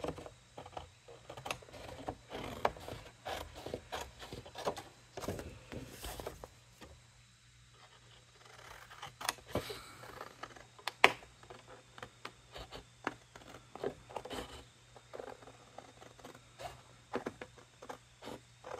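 Scissors cutting paper: a run of irregular snips and paper rustling, with a short pause about seven seconds in and one sharper snip about eleven seconds in.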